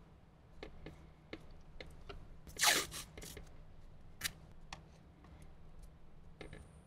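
Electrical tape being pulled off the roll and wrapped around cable connector joints: a short ripping sound about two and a half seconds in, among light clicks and rustles of wires and plastic RCA plugs being handled.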